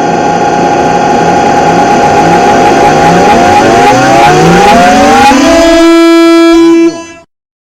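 Loud, distorted race-car engine sounds revving up through the gears again and again, each rev rising in pitch. Near the end a held air-horn blast sounds, then everything cuts off abruptly.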